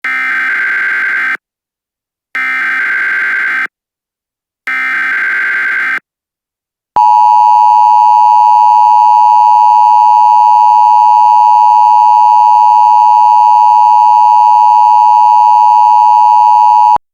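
Emergency Alert System tones: three screeching SAME data header bursts, each about a second and a half long with short gaps, then about ten seconds of the steady loud two-tone EAS attention signal, which announces the voice message that follows.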